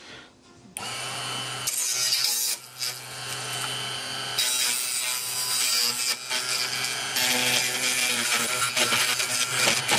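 Small bench milling machine starting up about a second in. Its spinning cutter grinds away a plastic pillar on a CD tray mechanism, and the cutting noise comes and goes, with a dip near the three-second mark and louder passages later, as the part is worked against it.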